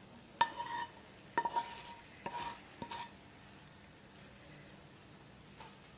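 A spatula stirring scrambled egg into macaroni in a metal pan, knocking and scraping against the pan about five times in the first three seconds with short ringing clinks. After that only a faint steady hiss remains.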